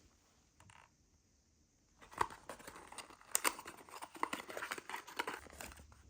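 Packaging being handled: quiet at first, then from about two seconds in a rapid, irregular run of crinkles and small clicks.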